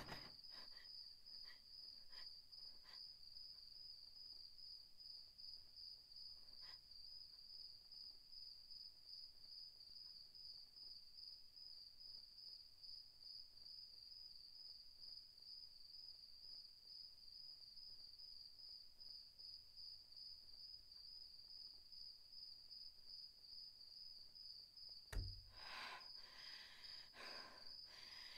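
Faint, steady high-pitched chirring of crickets. About 25 seconds in there is a single dull thud, followed by a few short, sharp breaths near the end.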